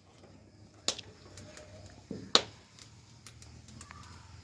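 Two sharp knocks about a second and a half apart, with a few faint ticks after them.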